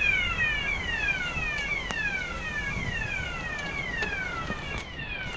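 A high chirp that falls in pitch, repeated about twice a second at even spacing, over a low street rumble.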